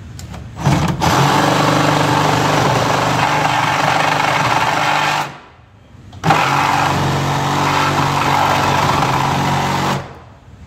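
Reciprocating saw with a metal-cutting blade running at full speed as it slices through the nails between a wall stud and the rotted bottom plate beneath it. It runs in two long stretches, stopping briefly about halfway through.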